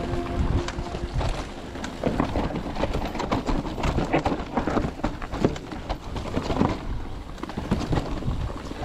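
Mountain bike riding over a rough, technical dirt trail: tyres on dirt and rocks with irregular clattering and knocking as the bike bounces over bumps.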